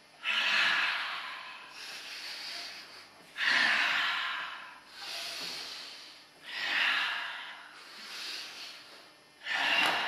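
Deep, loud breathing done as an exercise, in a steady cycle: four strong breaths that start suddenly, about three seconds apart, each followed by a softer breath.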